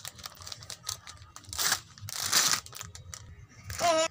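Crinkling and rustling with small clicks as a light bulb is handled, with two louder crinkly bursts around the middle. A child's voice calls out briefly near the end.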